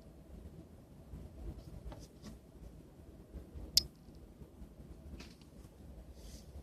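Plastic body of a Palm Treo 755p smartphone being handled, with a few faint clicks and one sharp click a little under four seconds in.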